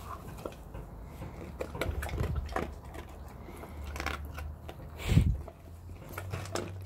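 A dog crunching and chewing a treat, with scattered short clicks and one louder thump about five seconds in.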